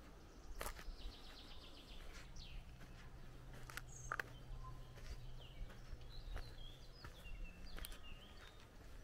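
Faint outdoor ambience: small birds chirping, with a short high trill about a second in and scattered calls later. Under them runs a low steady hum, and a few sharp clicks stand out.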